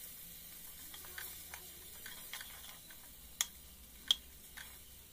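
Onion and spice masala frying in oil in a metal kadai while being stirred with a spatula: a soft, steady sizzle with scattered clicks and scrapes of the spatula against the pan, two sharper taps about three and a half and four seconds in.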